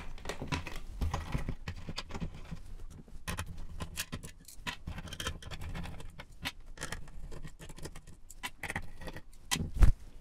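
Small clicks and taps of a screwdriver and fingers working on a plastic power-supply case and its circuit board as the old board is unscrewed, with one louder knock near the end.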